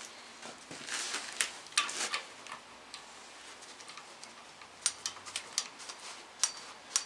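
Loose bolts and nuts clinking and ticking as they are handled and fitted by hand, with a few rustles; a quick cluster of light clicks comes about five seconds in.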